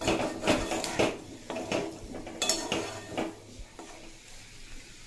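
Metal spatula stirring and scraping thick, spiced potato and jackfruit pieces around a metal kadai, with irregular scrapes and knocks against the pan. The strokes thin out after about three seconds.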